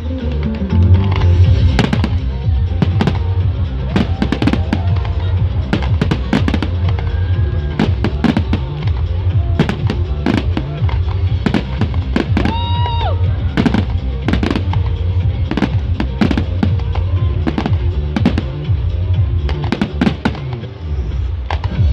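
Display fireworks going off in a dense barrage of bangs and crackles, with a short whistle about halfway through. Music plays underneath.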